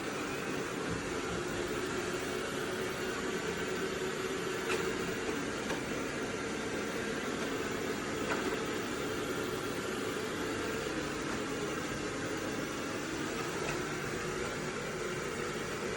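AIRROBO T20+ robot vacuum running while cleaning: a steady hum and hiss from its suction fan and brushes, with two faint ticks about five and eight seconds in.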